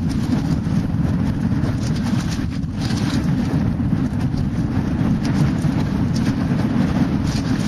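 Wind buffeting a helmet-mounted camera's microphone at speed on a downhill mountain-bike run, a steady low rumble, with scattered clicks and rattles from the bike over the dirt trail.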